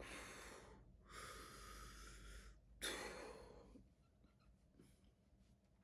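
A man breathing hard through his open mouth, with three faint, airy breaths in about four seconds, the middle one the longest: he is panting against a tongue burning from hot sauce.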